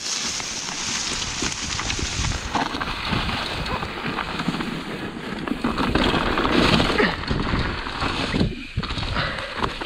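Mountain bike ridden over rocky dirt singletrack: tyres rolling and crunching over dirt and rock, with many small knocks and rattles from the bike, and wind noise on the microphone.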